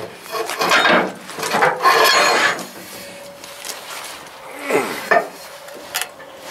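Wooden stake side of a truck flatbed creaking and scraping as it is levered up out of its stake pocket with a pry bar and a long steel pipe. It goes in two spells: a run of strokes in the first couple of seconds, then more about five seconds in.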